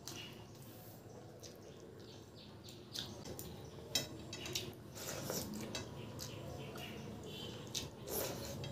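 Fingers mixing rice into runny dal on a steel plate, with soft wet squishing and a few sharp clicks against the metal. Near the end a handful is eaten, with wet mouth sounds.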